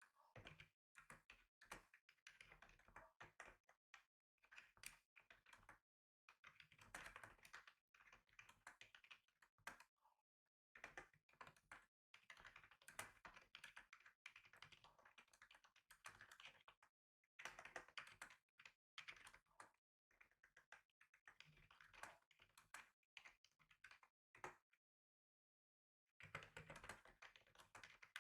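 Typing on a computer keyboard: quick runs of key clicks broken by short pauses, with a longer pause near the end.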